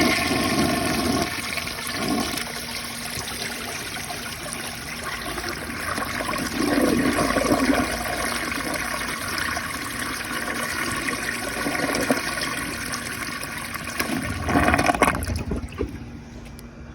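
Toilet flushing, heard close up: a steady rush and swirl of water, swelling louder about seven seconds in and again near the end, then dying down to a faint trickle.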